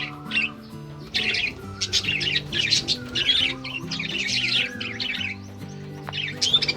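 Budgerigars chattering and warbling in rapid runs of chirps, with background music of slow held notes underneath.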